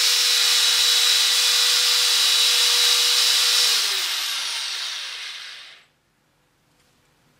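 Power drill spinning a P500 abrasive disc to sand the yellowed plastic lens of a headlight, running steadily at speed. About two-thirds of the way through the trigger is released and the drill winds down, its whine falling in pitch until it stops.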